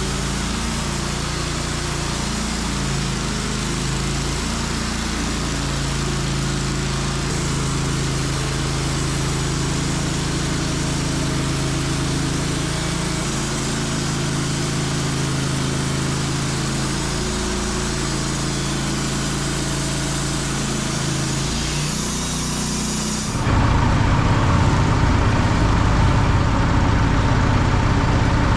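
Wood-Mizer portable bandsaw sawmill running steadily, its engine drone under the hiss of the band blade sawing through a maple log. About 23 seconds in, the sound changes abruptly to a louder, deeper rumble.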